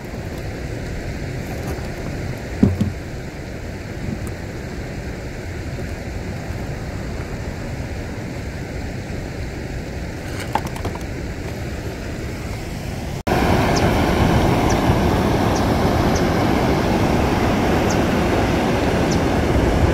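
Steady rush of a river running fast over rocks, with a single thump a little over two seconds in. About thirteen seconds in it switches suddenly to a louder, rougher rush with a few light ticks.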